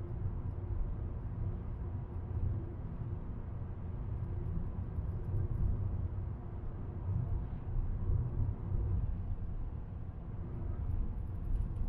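Steady road noise of a car driving at speed: an even, low hum of tyres and engine without breaks or sudden events.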